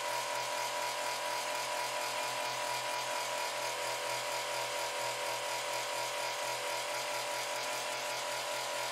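Drill motor of a DIY magnetic stirrer running steadily at speed, a constant high tone with a fast, even pulsing hum underneath.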